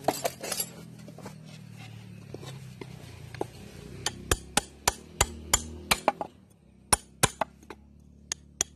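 Hand hammer tapping metal at a bull's hoof during shoeing: sharp, ringing taps, a few at first, then a quick run of about three a second from about four seconds in, then slower, spaced taps.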